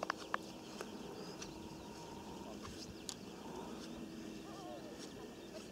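Quiet open-field ambience: a faint steady hum under a low background hiss, with a few light clicks in the first second.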